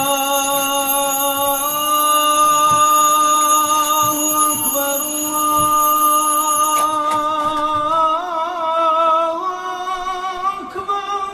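A song with a voice holding long, wavering notes. Under it, a steady high electronic alarm-clock tone runs and stops about seven seconds in, as the clock is switched off.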